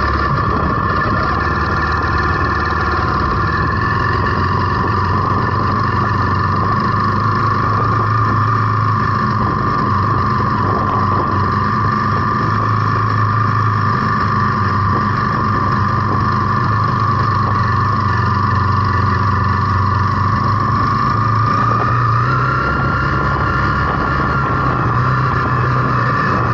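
Zontes T350's single-cylinder engine running steadily as the motorcycle rides along, heard from the bike-mounted camera, with wind noise mixed in. The engine note lifts slightly about 22 seconds in.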